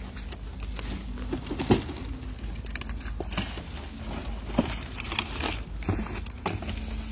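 Hand-picking and packing strawberries: irregular clicks and knocks of plastic clamshells handled in a cardboard tray, with rustling among the plants, over a steady low rumble. The loudest click comes about two seconds in, another sharp one past the middle.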